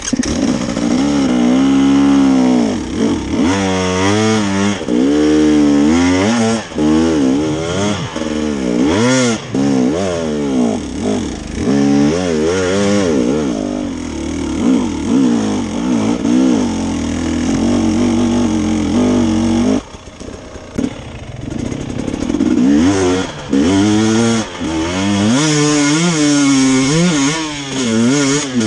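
KTM enduro motorcycle engine revving hard and repeatedly rising and falling in pitch, under load on a steep, leaf-covered climb. About twenty seconds in it drops away briefly, then revs up again.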